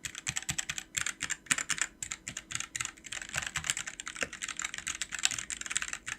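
Typing test on a Sades Kunai 65% mechanical keyboard with Gateron switches: fast, continuous keystroke clacks with no pause.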